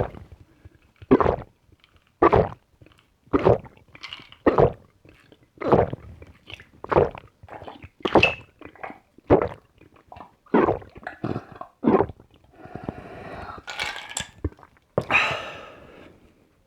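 Close-miked gulping of ice-cold water, a loud swallow about once a second. Near the end it gives way to a longer, noisier stretch and one last breathy sound.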